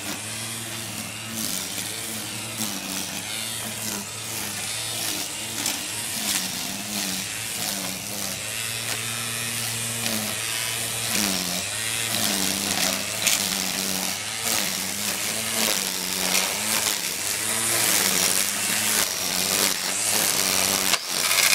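Cordless electric string trimmer running, its motor whining steadily with the pitch sagging briefly now and then under load, and the nylon line hissing and ticking as it cuts through grass. It gets louder toward the end.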